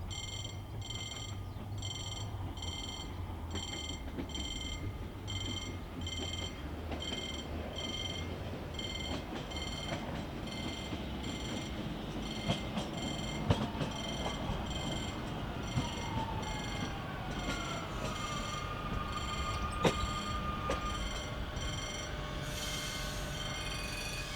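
Railway level crossing warning bell ringing in short, even electronic beeps, about one and a half a second, while a train runs past with a rumble, a few sharp clicks and a gliding motor whine that then holds one note.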